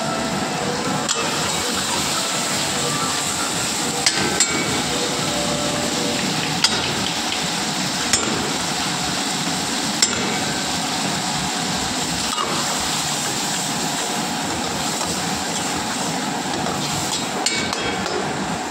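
Paneer gravy sizzling steadily in a steel pan over a gas burner, with a steel ladle clinking against the pan now and then as it is stirred.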